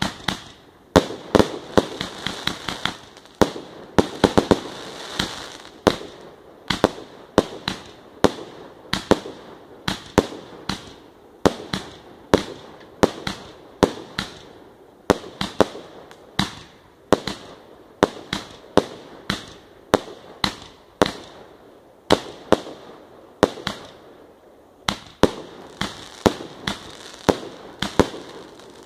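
A 300-shot firework cake firing aerial shells in quick succession: a steady run of sharp bangs, about two a second, with a hiss between them.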